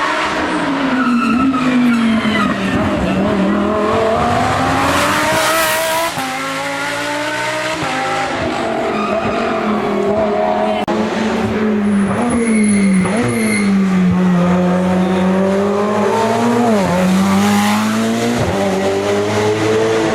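Racing car engine on a hill-climb run at high revs, its pitch rising and falling several times as it accelerates, shifts gear and lifts off for corners.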